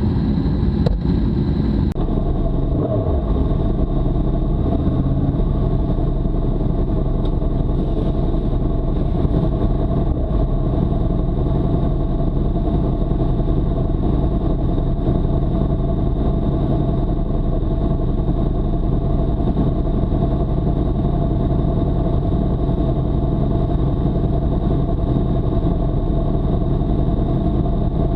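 Yamaha R1M's crossplane inline-four engine running steadily at a constant low speed, close to the microphone, with no revving.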